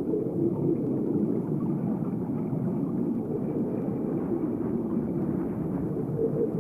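Steady low rumbling wash of noise with no distinct events.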